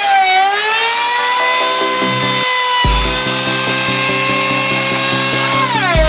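A high-speed power tool motor whining, its pitch sagging as it bites into the wood just after the start and again near the end, then climbing back. Background music with a beat plays underneath.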